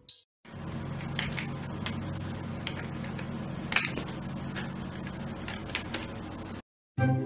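A toucan's beak clicking and tapping against a computer tower: a handful of sharp, separate clicks, the sharpest about halfway through, over a steady low background hum and hiss.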